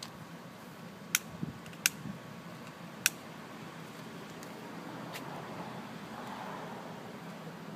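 Long-nosed butane utility lighter clicking: four sharp clicks in the first five seconds, the first three loudest. A soft rushing follows near the end as loose cottonwood seed fluff catches fire and burns.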